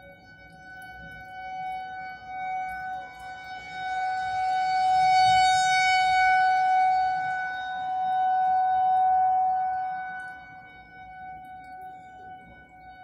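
Federal Signal 2001-130 rotating outdoor warning siren sounding one steady tone for a severe thunderstorm warning. It swells louder from about three seconds in as its horn turns toward the listener, holds, then fades again near the end as it turns away.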